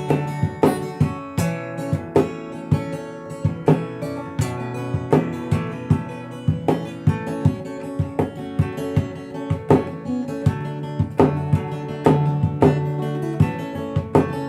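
Acoustic guitar played fingerstyle: a plucked melody over sustained bass notes, with regular sharp accents.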